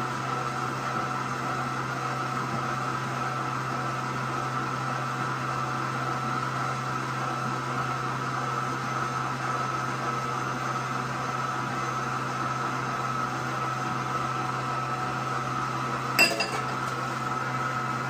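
Electric stand mixer running steadily, beating cake batter with an even hum. One sharp clink near the end.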